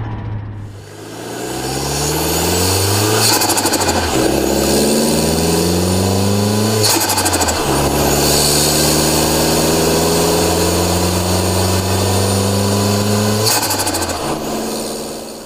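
Turbocharged car engine accelerating hard through the gears, its pitch climbing in runs. Where the revs drop at the gear changes, about three seconds in and again near the end, a rapid chattering turbo flutter comes from the compressor with no blow-off valve venting the boost.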